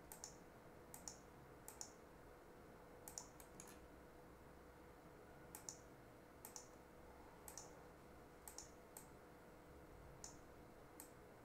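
Faint computer mouse clicks, single and in quick pairs, spaced irregularly over a low steady hum, as points of a roto shape are placed one by one.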